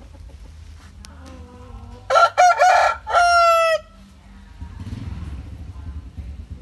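A rooster (gamecock) crows once, about two seconds in: a few choppy opening notes, then a long held final note that drops slightly at the end.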